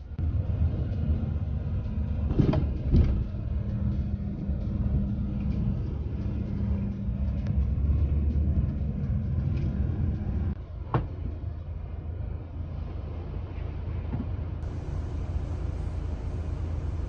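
Steady engine and road rumble heard from inside an express coach, with a few short clicks and knocks; the engine's hum changes about ten seconds in.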